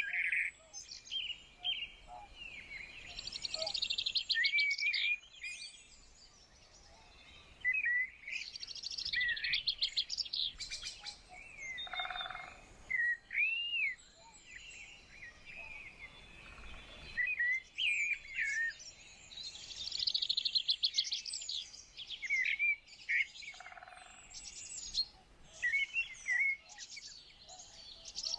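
Several songbirds singing and chirping outdoors, in warbled and trilled phrases of a few seconds with short pauses between them. A lower-pitched call sounds twice, about halfway through and again near the end.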